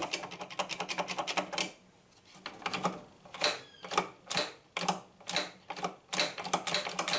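Clicking and knocking of plastic and metal parts of an Electrolux LTE06 washing machine's spin mechanism being handled and worked by hand: a quick run of clicks for about the first second and a half, then scattered single clicks.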